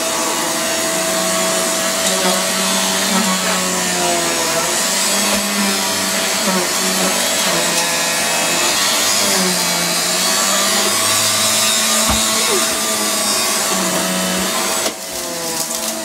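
Electric upright vacuum cleaner running with a steady whine while it burns and smokes at the floor head. The sound drops sharply in level about a second before the end.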